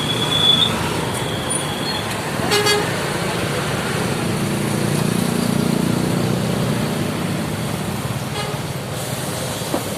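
Road traffic with a heavy vehicle's engine rumble swelling and fading through the middle, and a short vehicle horn toot about two and a half seconds in, with a fainter toot near the end. A thin high steady tone sounds during the first two seconds.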